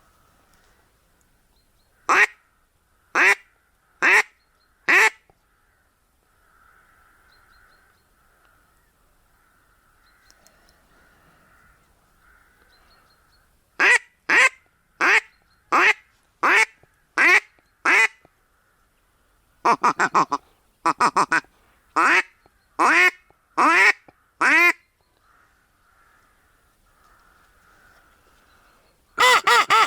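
Duck call imitating a hen mallard, blown in loud quacking runs to lure drakes: four separate quacks, then a run of about seven, then a quicker run of doubled quacks, and a fast string of quacks at the end.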